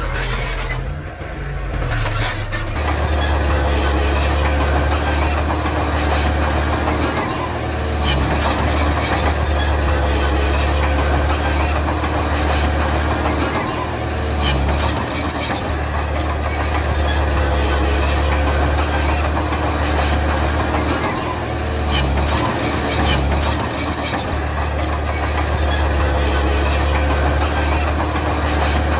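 Komatsu D31 bulldozer's diesel engine working, a loud steady low drone with mechanical clatter above it. It eases off briefly a few times, around a quarter, half and three quarters of the way through.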